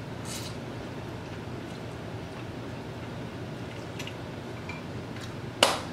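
A person eating pho: rice noodles slurped off chopsticks, with a soft tick of the chopsticks in a glass bowl. A short, sharp eating noise near the end is the loudest sound.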